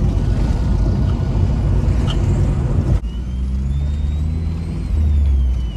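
Engine and road rumble inside a Chevrolet S10 pickup's cabin while driving. About three seconds in the sound changes abruptly to a steadier low drone, with a faint high whine that glides up and back down.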